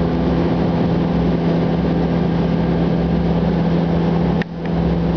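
Steady machine hum: a low, even tone over a noisy rush. Near the end it briefly dips with a click.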